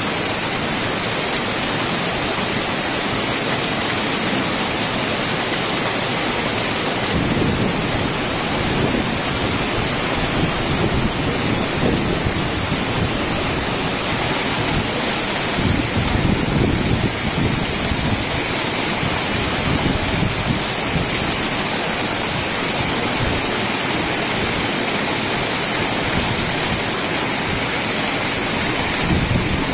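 Heavy rain pouring steadily onto a paved road, with streams of water from roof drain spouts splashing onto the pavement. A low rumble swells up now and then.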